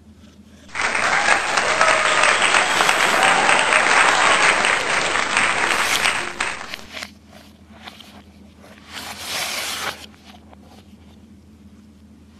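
Applause with some cheering, dense and steady for about six seconds, then cutting off. About three seconds later there is a second, shorter burst of noise lasting about a second.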